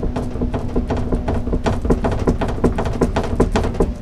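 Rapid, irregular wooden knocking and rattling, several knocks a second, as plywood panels of a loft platform are worked and rocked to pry a piece loose.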